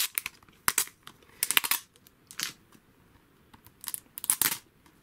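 Plastic crinkling in short bursts, with a quiet spell in the middle, as a shrink-wrapped Blu-ray case is handled.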